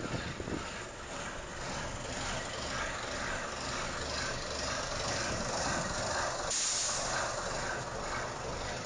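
Steady running noise of a vehicle under way on its first test run, with wind on the microphone. A louder hiss comes in about two-thirds of the way through.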